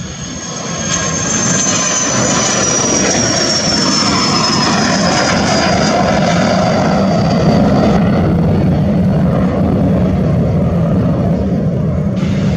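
Business jet's turbofan engines, loud and steady, growing louder about a second in, with a high whine that falls slowly in pitch.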